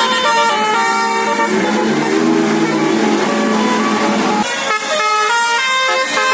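Bus's basuri telolet musical horn playing a melody, one held note after another at changing pitches. About four and a half seconds in, a lower sustained tone cuts off suddenly and a new run of notes begins.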